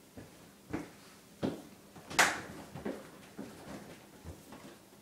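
Knocks and clunks from a refrigerator being handled and climbed into: about nine separate knocks, the loudest a sharp bang a little past two seconds in.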